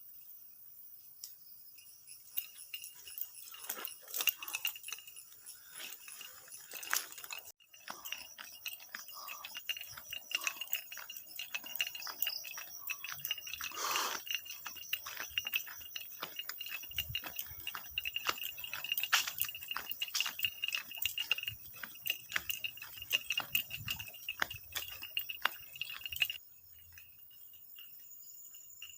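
A steady high insect chirring, with many small clinks and knocks over it. The chirring stops abruptly near the end.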